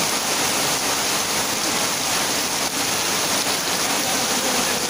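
Torrential rain falling on a tin roof and on flooded ground: a dense, steady hiss with no let-up.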